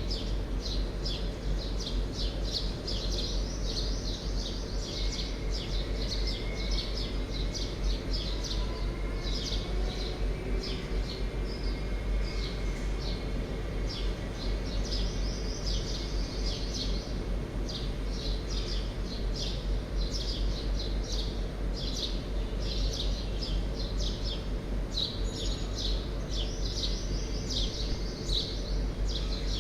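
Many small birds chirping rapidly and continually, over a steady low hum and background noise.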